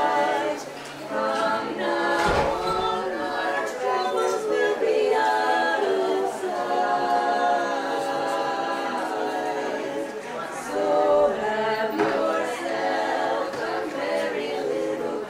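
A small group of Christmas carolers singing unaccompanied, several voices together in held notes.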